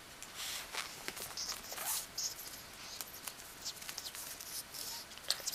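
A cat's paws and claws scratching and rustling on fabric sofa upholstery as it swipes and plays, in irregular soft scrapes and small taps.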